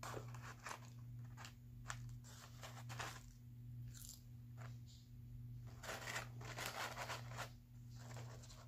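Close-up crunching and crinkling of a fast-food meal being handled and eaten, in irregular clusters that are densest about six to seven and a half seconds in, over a steady low hum.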